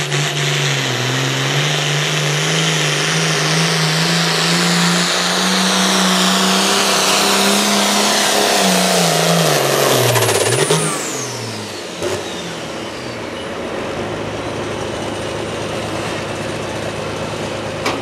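Hot farm pulling tractor's engine at full throttle under load, its pitch climbing slowly, then the throttle comes off about ten seconds in and the engine winds down, a high whine falling away with it. A sharp click a second or so later, then the engine runs on lower and steadier.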